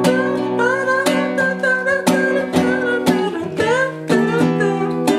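Nylon-string acoustic guitar strummed in a steady rhythm, chords struck again about every half second.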